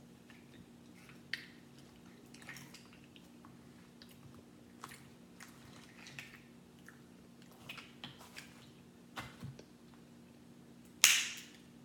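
Crab leg shells being cracked and snapped apart by hand: scattered small cracks and clicks, with one loud sharp crack near the end, over a faint steady hum.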